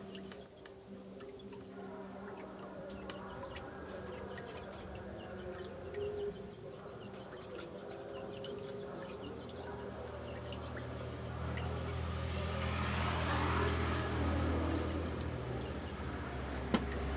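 Insects and birds calling. About ten seconds in, the low steady hum of a 200-watt electric pond pump comes up, and a hiss of moving water follows.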